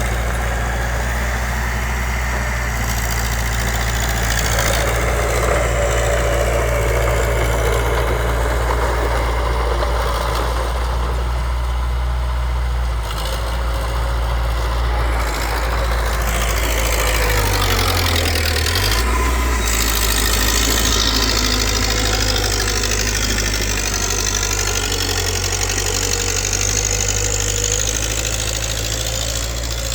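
Diesel engine of heavy earthmoving machinery running steadily, with the engine pitch shifting briefly about seventeen to nineteen seconds in.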